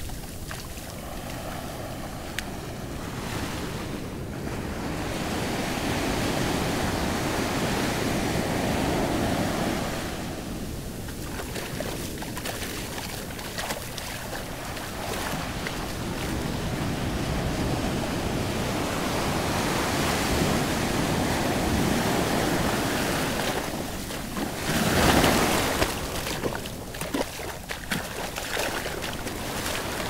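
Small surf breaking and washing up a sandy shore, the rush swelling and ebbing in slow waves, with wind buffeting the microphone. A louder rush comes about twenty-five seconds in.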